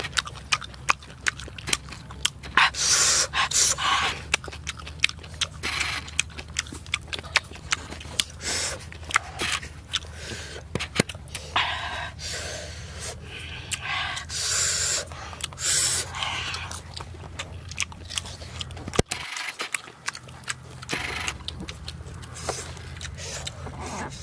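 Close-up eating of fried catfish: chewing and lip-smacking with many quick wet clicks, and a few sharp breaths drawn through the mouth.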